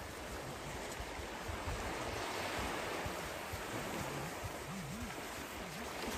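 Small waves washing onto a sandy shore: a steady surf noise that swells in the middle.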